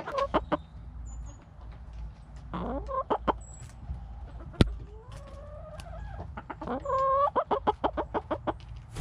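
Chickens clucking close by: a few short calls, a longer drawn-out call about two-thirds through, then a quick run of clucks near the end. Scattered short taps and one sharp tap about halfway sound over a steady low rumble.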